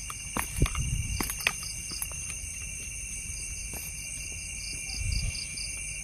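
Chorus of night insects: steady high-pitched trilling at several pitches at once, with a faster pulsing call joining about four and a half seconds in. A few low thumps sound about half a second in and again about five seconds in.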